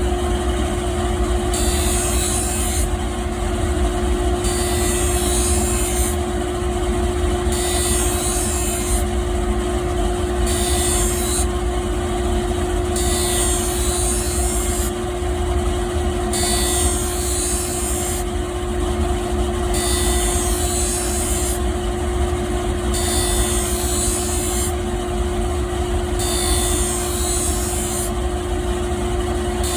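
Ice-skate sharpening machine running with a steady motor hum, its grinding stone giving a high hiss on the blade that swells and fades regularly about every three seconds.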